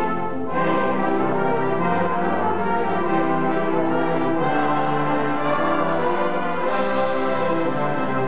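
Brass band playing full, sustained chords, the notes changing about every second.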